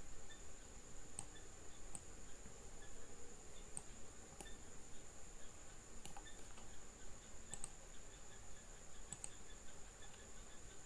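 Scattered clicks of a computer mouse and keyboard, about eight sharp clicks spaced irregularly, over a faint steady high-pitched whine.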